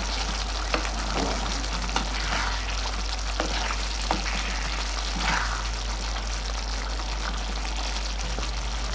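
Thick paneer masala gravy bubbling and sizzling in a pan as a spatula stirs it, with several light scrapes and taps of the spatula against the pan over the first half.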